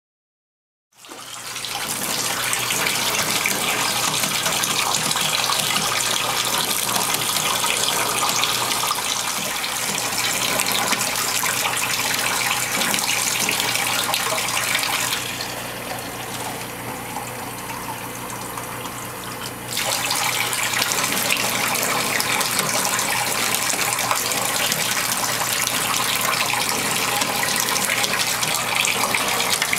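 Bathtub faucet running, water rushing steadily into the tub. It starts about a second in and turns quieter and duller for about five seconds past the middle.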